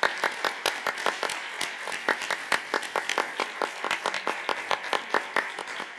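Audience applause: many hands clapping densely, with a few sharp single claps standing out above the rest.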